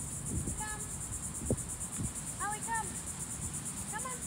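Steady, high-pitched, fast-pulsing drone of insects (crickets or cicadas), with a few short bird chirps and a couple of soft low thumps.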